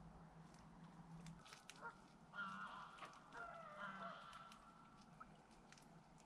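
Geese honking faintly, a cluster of calls about two to four seconds in.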